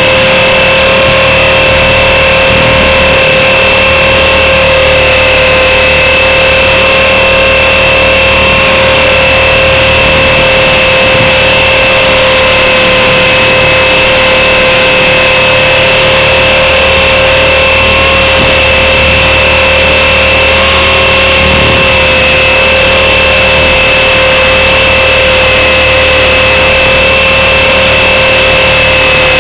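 Blade 400 RC helicopter's electric motor and rotor running in flight, picked up by its own onboard camera: a loud, steady high whine held at one pitch over a hissing rush.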